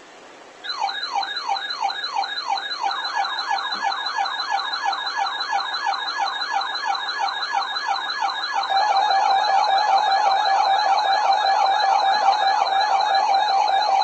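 Electronic siren-style alert alarm, most likely from a weather radio receiver sounding for a marine warning. It starts about half a second in as a fast up-and-down wail, repeating about three times a second. About two-thirds of the way through, a steady tone joins it and becomes the loudest part.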